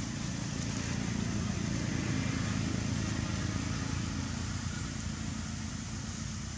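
Low rumble of a motor vehicle's engine, swelling over the first couple of seconds and easing off near the end, as a vehicle passes.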